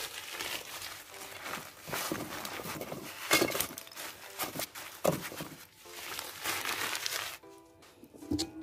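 Irregular rustling, scraping and knocking of food being handled over a charcoal fire, with several sharp knocks. It dies down about a second before the end.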